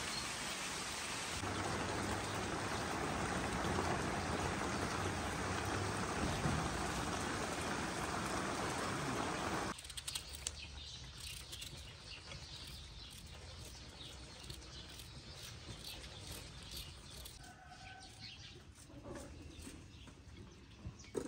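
Steady rain falling through the leaves of an orange tree, which cuts off abruptly about ten seconds in. After that, a quieter outdoor background with small birds chirping and a short call near the end.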